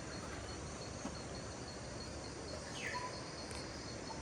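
Rainforest ambience: a faint insect trill with a fast, even pulse over a steady background hiss, with a short falling bird call about three seconds in.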